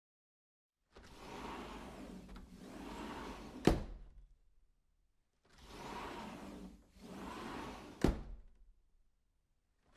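A door sound effect played twice: each time about two seconds of rushing, rolling noise in two strokes, ending in one sharp bang as the door shuts.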